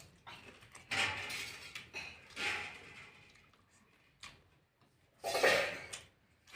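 Close-up eating sounds: a meal of rice and fried food handled on a plate and chewed, in three short bursts, the loudest near the end.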